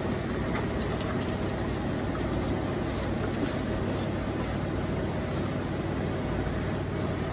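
Steady rush of water running from a faucet hose into a dog-bathing tub.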